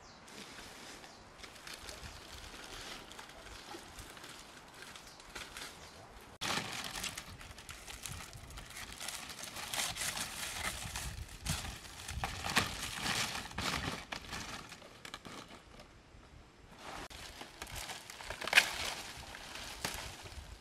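Irregular rustling and crackling, as of dry material being handled or stepped on. It grows louder after about six seconds and dies down, and there is one sharp knock near the end.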